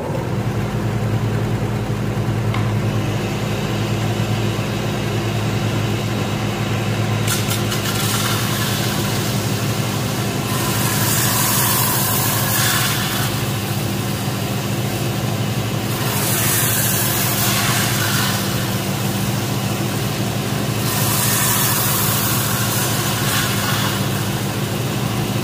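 A Craftsman combination belt and disc sander runs with a steady motor hum. Several times a wooden honeycomb shelf frame is pressed onto the moving belt, adding a louder rasping hiss with each pass as the corners are rounded and the nail heads are sanded flush.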